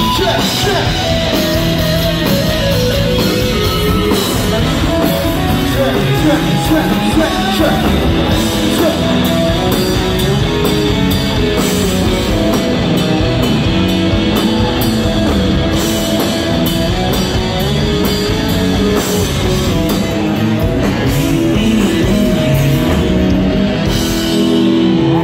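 Live rock band playing with electric guitars, drums and a lead vocal.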